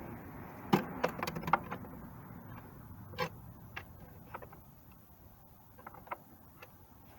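Light knocks and clicks: a quick cluster of several about a second in, one more a little after three seconds in, then scattered faint ticks over a low background hiss.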